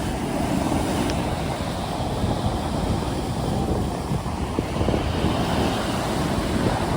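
Stormy sea waves washing and breaking, with wind buffeting the microphone in a steady low rumble.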